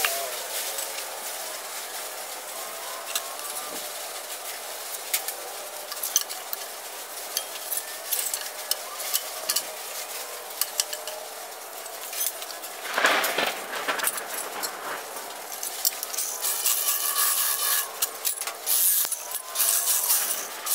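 Thin sheet steel being slid, shuffled and handled on a steel bench: irregular scraping and rubbing with scattered light clicks and clinks, and a louder rasping scrape lasting about a second midway.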